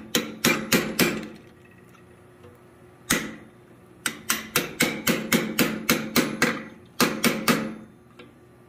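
Blacksmith's hand hammer striking a hot cut chisel to split and open up a hot 3/4-inch square steel bar on the anvil. The blows come about four a second in short runs, each with a brief metallic ring: a run at the start, a single blow about three seconds in, a longer run of about ten blows from four seconds, and three more near seven seconds.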